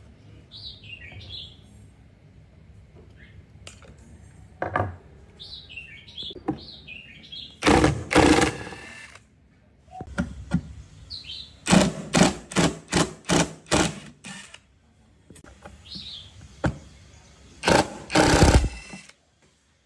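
Cordless drill/driver running in short bursts as it backs out the screws holding a speaker's tweeter: one longer burst, then a quick run of about eight short trigger pulses, then two more near the end. Small birds chirp in the background.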